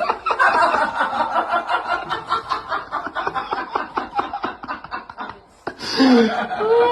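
A person laughing hard in a long run of quick giggles, breaking off about five and a half seconds in; after a short pause comes a brief vocal sound gliding up and down in pitch.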